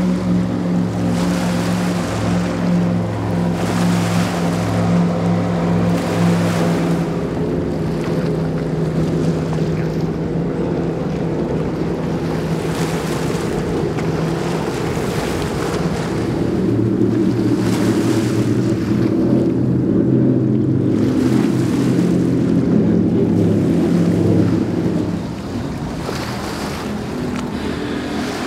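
Offshore powerboats running past at speed: a steady, low multi-engine drone over rushing water and spray. The engine note changes about halfway through as a different boat comes by, and the sound drops a little quieter near the end.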